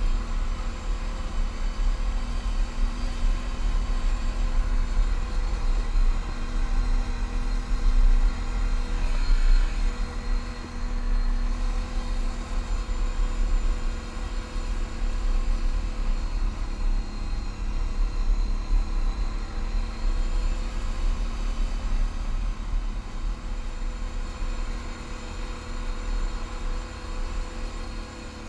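ATV engine running steadily on a trail ride, under a heavy, uneven low rumble.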